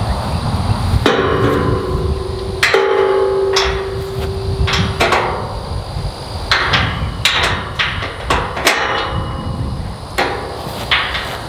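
Steel tube pipe gate knocking and clanking on its hinges as it is pulled and shifted by hand, about nine irregular metallic knocks, several leaving a ringing tone from the hollow steel tubing. Wind rumbles on the microphone underneath.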